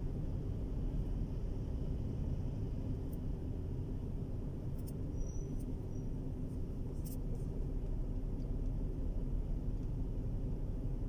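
Steady low rumble inside a car's cabin while it sits stopped in traffic with the engine idling. A few faint clicks sound, and a brief high chirp comes about halfway through.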